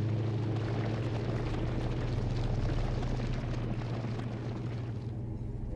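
A steady low rumble with a rushing, crackling noise over it that fades out near the end.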